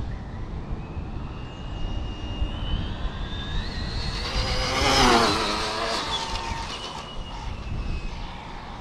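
Traxxas Slash 4x4 RC car with a Hobbywing 4274 brushless motor on a full-throttle speed run: its high whine climbs as it approaches, peaks as it passes close about five seconds in at about 93 mph, then drops in pitch as it speeds away. Wind rumbles on the microphone throughout.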